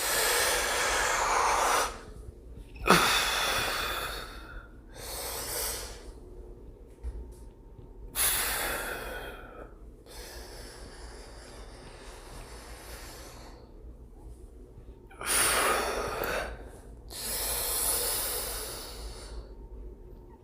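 A man breathing forcefully through repetitions of a hip-hinge exercise with arm swings: about six loud rushes of breath, each one to two seconds long, with a quieter gap in the middle.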